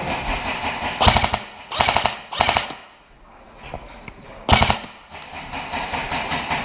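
Airsoft electric rifles firing short bursts of full-auto fire, each burst a rapid string of clicking shots: about five bursts, the last about 4.5 seconds in, with fainter rapid firing after it.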